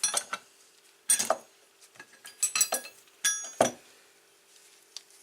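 Small metal parts clinking and knocking against each other while being handled, a string of sharp ringing clicks in several quick groups over the first four seconds.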